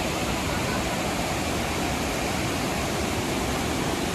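Waterfall running strongly, a steady rush of falling water with spring snowmelt flow.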